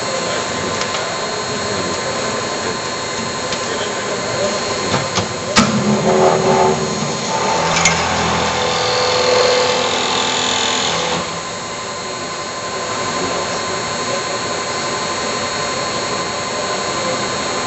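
Unit-head machine tool on a production line running with a steady mechanical hum. About five and a half seconds in a sharp click starts a louder stretch of machining with a whine, which stops suddenly about eleven seconds in.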